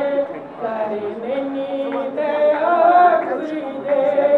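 A woman singing a devotional song solo without accompaniment, holding long notes that slide up and down in pitch, with short breaths between phrases.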